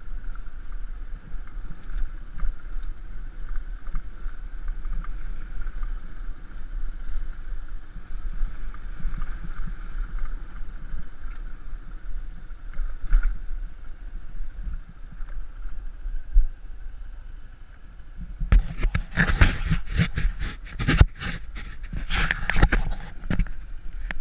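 Small trail motorcycle riding along a rough dirt track, its engine running steadily over a low rumble. For the last five seconds or so, loud irregular crackles and knocks cover it.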